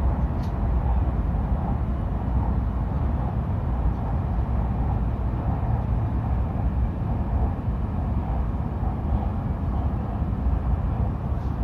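Hayabusa shinkansen train running with a steady, even rumble.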